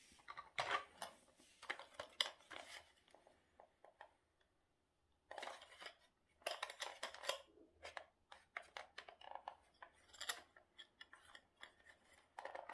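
Plastic casing of a battery-powered self-spinning toy being handled and pulled apart by hand: irregular clusters of clicks, scrapes and rattles, with a pause of a couple of seconds partway through.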